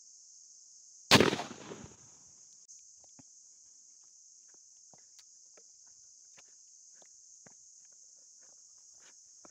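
A single shotgun shot about a second in, its sound dying away over nearly a second. A steady high-pitched insect chirring runs underneath, and afterwards come faint scattered footsteps through grass and brush.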